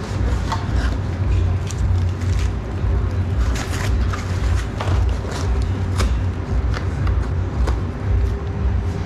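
Steady low machine hum with a faint constant tone above it, and scattered clicks and knocks of things being handled.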